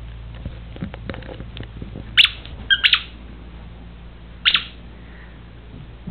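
Papillon puppy giving a few short barks in quick succession, after some light tapping.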